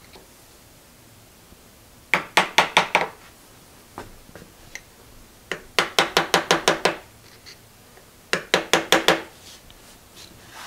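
Small hammer rapidly tapping a screwdriver held as a drift against the cast-iron table end of a 1950 Wells Index milling machine, trying to drive out a pin holding the lead screw in place. Three quick runs of sharp metallic taps, about eight a second, each with a short ring; the middle run is the longest.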